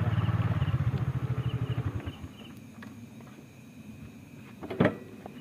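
A vehicle engine running with a low, pulsing beat that slows and dies away about two seconds in, as if switched off. Then it is quiet but for high chirps repeating in pairs, and a single loud thump near the end.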